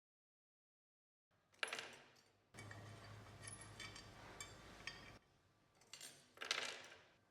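Small metal typewriter parts clinking and being set down on a hard surface, a few sharp clinks, with a steady low hum for a few seconds in the middle.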